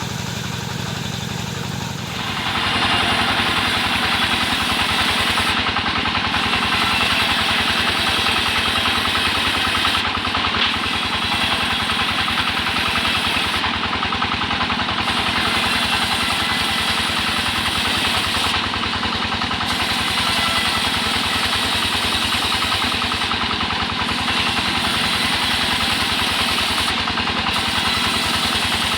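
Engine-driven wood saw running: a steady engine throb, then about two seconds in a louder, dense, sustained noise sets in and holds, the sound of the saw working through timber.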